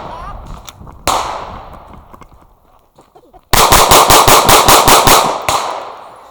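Pistol shots: one shot about a second in, then a fast string of about ten shots in two seconds, each trailing off in a short echo.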